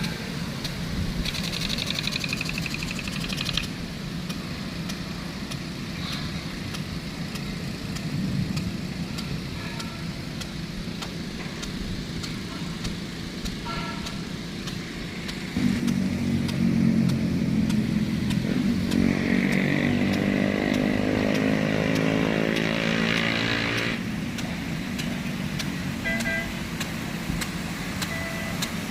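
A motor engine running steadily. About halfway in, a louder engine sound joins it for some eight seconds, its pitch rising and falling.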